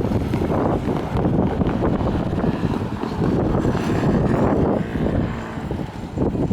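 Train on the Tokaido Line passing over a level crossing: a loud, continuous rushing rumble that swells and eases, with wind buffeting the microphone.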